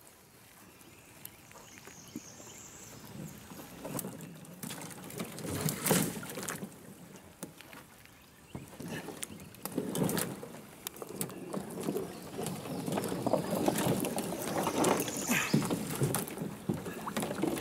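Water splashing and sloshing, with irregular hollow knocks and the crackle of dead branches, as a swamped canoe is wrestled free from a fallen tree in a river. The splashing and knocking grow busier in the second half.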